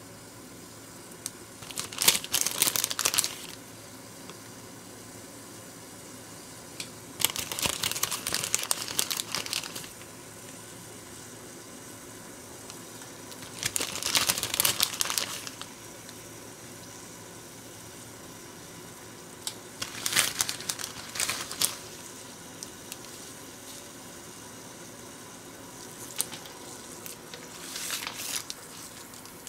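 Clear plastic bag crinkling in five bursts, roughly every six seconds, as dried animal-shaped noodles are taken out of it, over a steady faint hiss.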